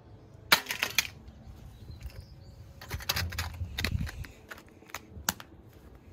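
An LG Optimus smartphone dropped onto a flagstone patio: a sharp crack as it hits the stone about half a second in, followed by a quick clatter as it bounces. Around three to four seconds in come more scraping clicks as the phone is picked up off the stone, then a couple of single clicks.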